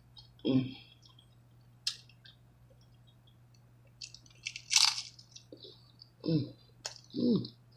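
Close-up eating of a crispy hard-shell birria taco: a loud crunch of the shell about five seconds in, amid small chewing clicks. Three short low hums of the voice come with it, one near the start and two near the end.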